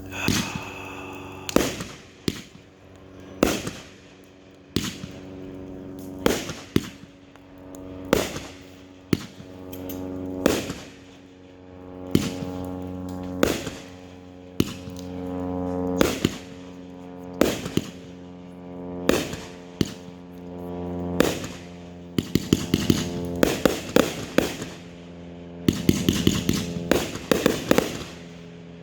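Consumer 500-gram firework cake firing: a sharp shot about every one and a half seconds, then quicker rapid volleys of shots near the end. A steady drone of held tones sounds underneath.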